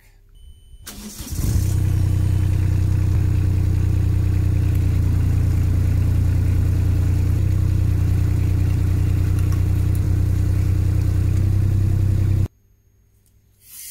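JCB 8018 mini excavator's engine and hydraulic track drive running steadily as the raised track is spun off the ground. The sound builds up about a second in and cuts off abruptly near the end.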